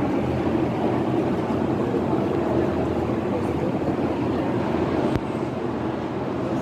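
Steady low rumble of a moving vehicle, with a single sharp click about five seconds in, after which the rumble is slightly quieter.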